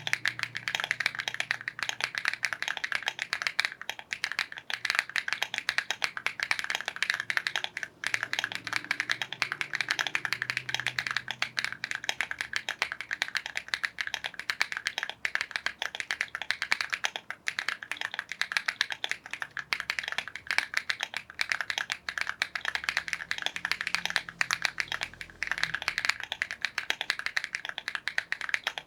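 Fast, continuous typing on a mechanical keyboard with KTT Macaron Pink linear switches (POM stems, polycarbonate tops, nylon bottom housings): a dense, unbroken stream of keystroke clacks.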